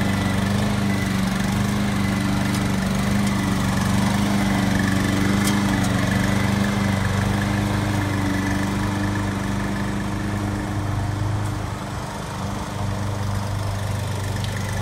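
Engine of an Evatech 22T hybrid remote-control slope mower running steadily on its first run, with a constant engine hum; it eases off slightly a little past the middle.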